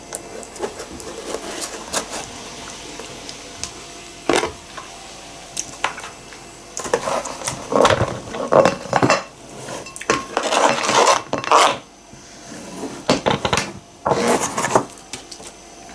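Kitchen knife tapping through kiwi on a plastic cutting board with scattered light clicks, then denser bursts of scraping and clatter as the cut pieces are moved off the board into a glass bowl.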